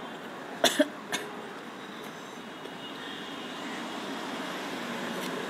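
A metal spoon clinking against plates three times, two close together and one just after a second in, over steady road-traffic noise.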